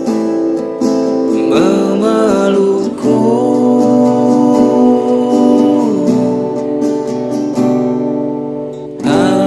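Song with acoustic guitar and a singing voice.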